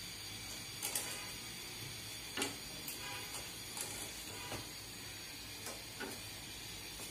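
Irregular light metallic clicks and clinks of a long-handled flower-pitha mould and a spatula knocking against a steel wok, about one a second, the loudest about a second in and again near two and a half seconds, over a faint steady hiss.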